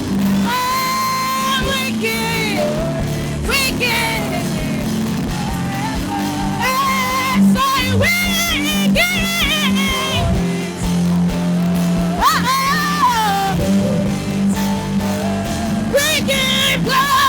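Live worship music: a worship leader singing with long, wavering melismatic phrases over sustained keyboard and band accompaniment.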